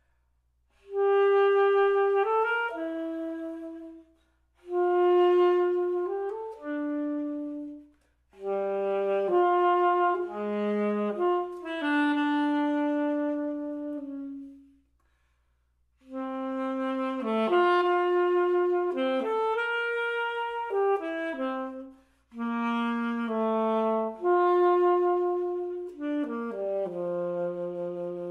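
Solo alto saxophone playing a slow, lyrical B minor etude: sustained, connected notes in phrases of a few seconds each, five in all, separated by short silent pauses.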